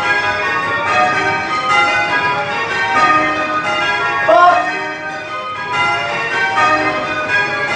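A ring of eight church bells being rung in changes, spliced methods, the strokes following one another in a rapid, even rhythm. A brief voice calls out about four seconds in.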